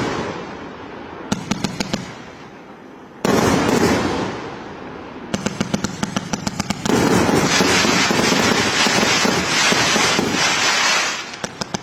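Fireworks going off: a loud bang about three seconds in that trails away, and runs of rapid crackling pops that build into a dense continuous crackle for several seconds before thinning to separate pops near the end.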